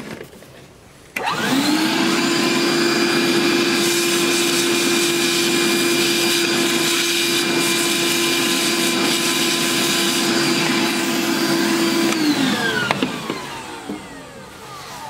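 Vacuum cleaner switched on about a second in, running steadily with a hum and a high whine as its hose sucks metal drill chips out of a freshly drilled hole in an engine coolant fitting; near the end it is switched off and winds down, its pitch falling.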